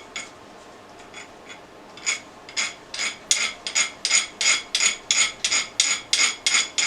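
Hand file rasping across a steel pipe fitting to bevel its end: a few light strokes, then quick back-and-forth strokes from about two seconds in, growing faster. The file skates over the hardened steel instead of biting.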